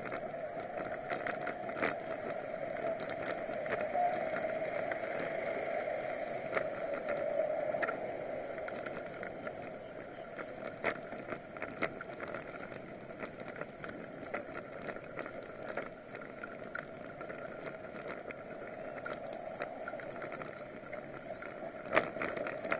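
A bicycle riding over a paved street, heard from a camera mounted low on the bike: a steady rush of wind and tyre noise with frequent small clicks and rattles, and a sharper knock near the end.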